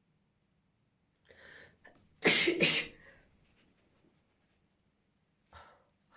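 A person's deliberately forced sneeze: a breathy intake of breath, then one loud, sudden sneeze a little over two seconds in. A short breath follows near the end.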